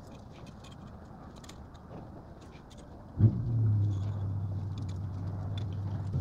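Faint clicks and light handling noises, then about three seconds in a low, steady motor hum starts suddenly and keeps running.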